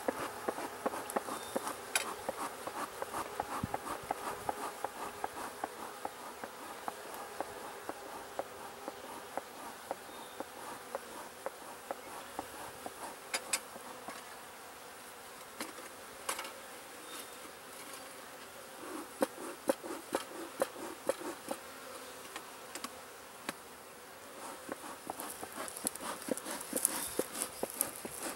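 Honeybees buzzing around an open hive box and nuc, a steady hum with single bees droning past close by every so often, and scattered faint clicks.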